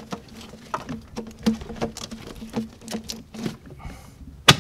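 Rubber turbo boost hose squeaking and scraping in short strokes as it is worked onto the throttle body. Near the end comes one sharp, loud pop as the hose seats fully on the throttle body, the sound that tells it is properly on.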